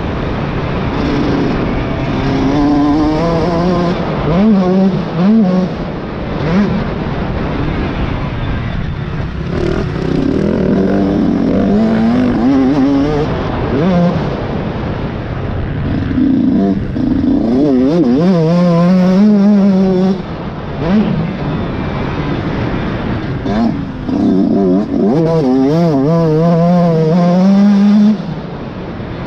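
Motocross dirt bike engine under hard riding, its pitch climbing and dropping over and over as the throttle is opened and shut, with a sharp drop in level near the end.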